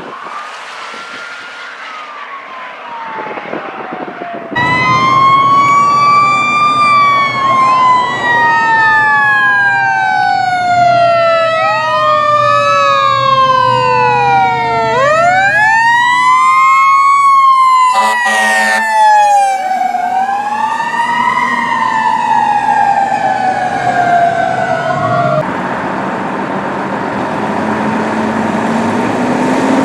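Fire truck sirens wailing, several overlapping, their pitch sweeping slowly down and back up with quicker sweeps between. They start faint and grow suddenly loud a few seconds in. A short, steady horn blast sounds about two-thirds of the way through. Near the end the sirens drop away, leaving truck engine and road noise with a slowly rising engine note.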